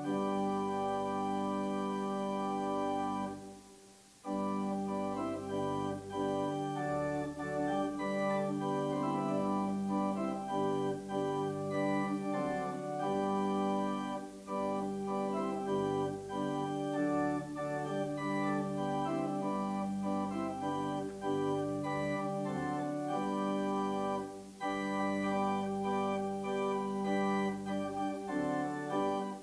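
Church organ playing slow music in held chords that change every second or so, with a brief break about four seconds in.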